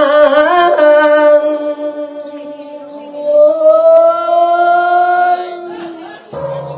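A single voice singing long held notes in the drawn-out, wavering melody of an Isan sung sermon (thet siang). Near the end, the voice breaks off and a steadier, lower-pitched chant-like sound takes over.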